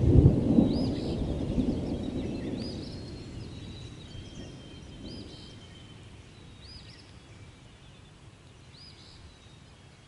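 A long roll of thunder rumbling and fading away over the first several seconds. Over it, birds sing: one repeats a short high call about every two seconds, and another gives a couple of thin, drawn-out whistles.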